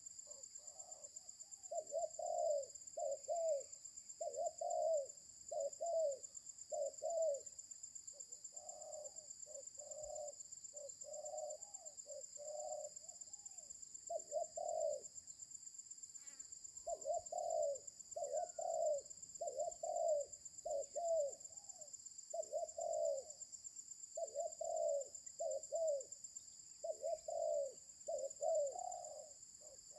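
Spotted dove (terkukur) cooing over and over, phrase after phrase of low coos with a short pause about halfway through; a rough, coarse-voiced cooer.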